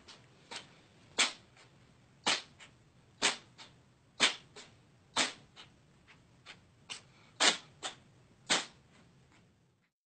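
A cat sneezing over and over in a fit, sharp short sneezes about once a second with fainter ones between.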